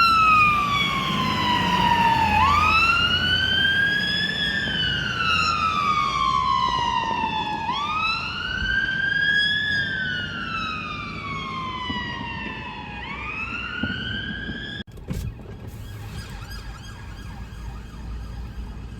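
Fire engine siren on a slow wail, rising and falling about every five seconds, growing gradually fainter. It cuts off abruptly near the end, leaving quieter street noise.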